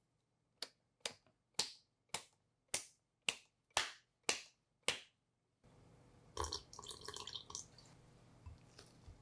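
Thick mango purée dripping from a lifted immersion blender head into a glass bowl: about ten short, sharp drops, roughly two a second. These are followed by a brief cluster of light clinks.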